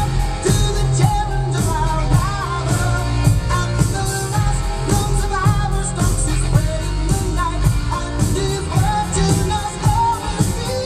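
A song with a singer over a steady beat and heavy bass.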